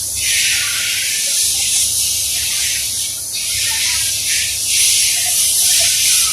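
Loud steady hiss of rushing air, swelling and easing slightly, over a low machine hum, from an industrial conveyor tunnel dryer.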